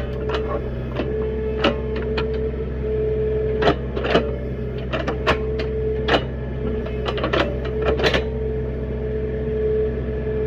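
A small engine running steadily, with irregular sharp clanks and scrapes from digging a trench.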